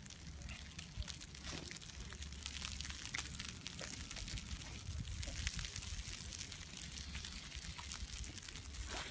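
Wind on a phone microphone on an open ski chairlift in falling snow: a steady low rumble and hiss with scattered faint crackles and ticks.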